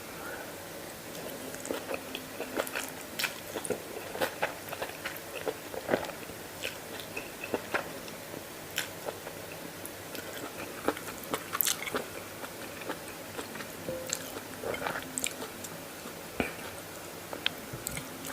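A person chewing and biting a mouthful of homemade dry spicy noodle salad (mee yum) close to the microphone, with irregular small crunches.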